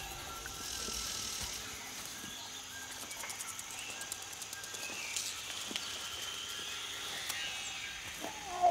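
Jungle ambience from a film soundtrack: a steady high insect hum with scattered chirps, clicks and distant creature calls. Near the end a loud creature cry starts.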